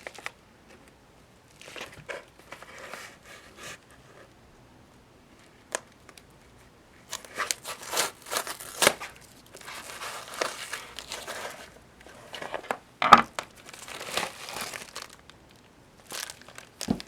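A mail package being ripped open by hand: irregular tearing and crinkling of the wrapping and plastic packaging, with a couple of sharp snaps, the louder one about two-thirds of the way through.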